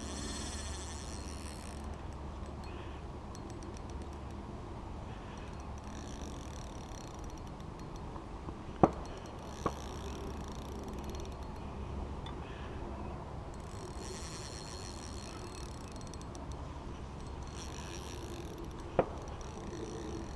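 Fishing reel cranked in short bursts of fine clicking while it is under load from a hooked hybrid striped bass. A steady low rumble runs underneath, with two sharp knocks about nine seconds in and another near the end.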